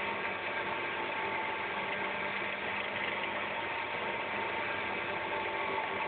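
Mazda Miata's 1.6-litre B6 four-cylinder engine running steadily, heard through a listening hose held against the engine block, giving a close, mechanical clatter. Somewhere in it is a hard-to-discern knock that the owner suspects may be rod knock.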